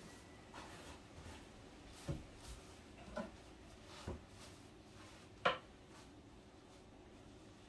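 Paintbrush working inside a wooden kitchen cabinet: faint brushing with about five light knocks as the brush and hand touch the wood, the sharpest about five and a half seconds in.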